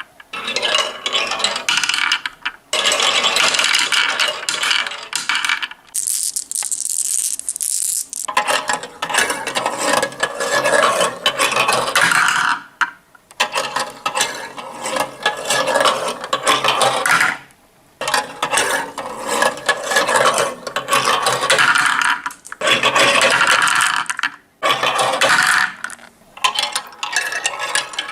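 Marbles rolling and clattering down a marble run, rattling over track pieces in dense runs broken by short pauses. About six seconds in, a brighter, hissing roll lasts for a couple of seconds.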